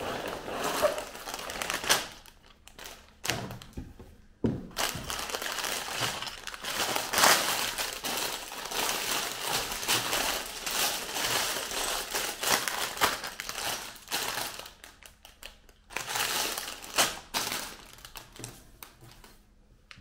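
Sealed plastic bags of LEGO bricks crinkling and rustling as they are handled and spread out on a table, with the loose bricks inside rattling and occasional bumps of the cardboard box. It comes in irregular spells with short pauses.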